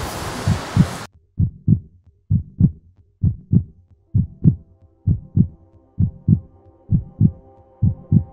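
Heartbeat sound effect: a slow, steady lub-dub, pairs of low thumps about once a second. It starts about a second in, when the background noise cuts off abruptly, and a soft sustained chord fades in under it during the second half.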